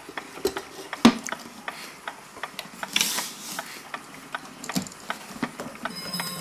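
Ticking and knocks of a wooden kitchen wall clock and its movement as the case is handled and turned over on the bench, with one sharp knock about a second in. Near the end its gong rod starts ringing, a sustained metallic tone with several overtones.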